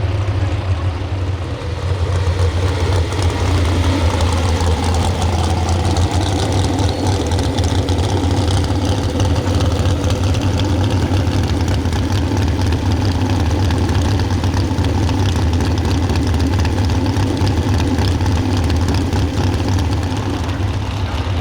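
A pro stock 4x4 pulling truck's engine running loud and steady, holding an even pitch with no clear revving.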